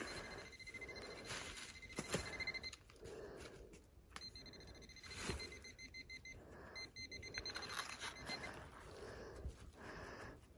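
Metal detector giving a rapid pulsed beep at one high pitch, in three spells of a second or two each, signalling metal in the hole being dug. Scraping and rustling of a hand digger in soil and dry leaves runs between the spells.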